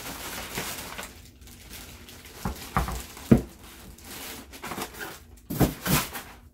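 Plastic bag wrapping crinkling and polystyrene foam packaging creaking and knocking as a sewing machine is lifted out of its foam insert and set down. There are a few sharp knocks, the sharpest about three seconds in, then a burst of rustling near the end.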